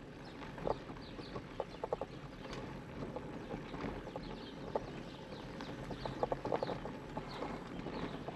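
An e-bike rolling along a dirt singletrack, with the rattling and irregular clicks and knocks of the bike over trail bumps and the steady rush of tyre noise. Birds chirp in the background in short, quick, falling notes.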